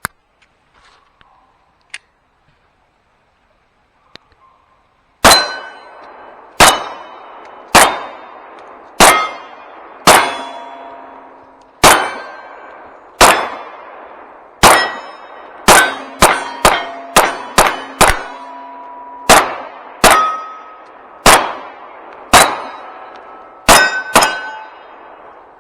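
About twenty gunshots fired at steel targets, each followed by the plates ringing with a clang. The firing starts about five seconds in and goes at an uneven pace, with a quick string of six shots around the middle.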